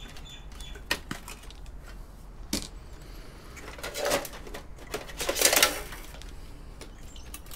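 Clicks, knocks and scraping rattles of an old PC's motherboard being slid out and handled in its case, with a few sharp knocks early and a louder, longer scraping rattle about five seconds in.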